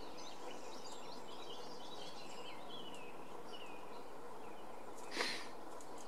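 Small songbirds singing and chirping over a steady outdoor hiss, with a single brief, loud, harsh burst of sound about five seconds in.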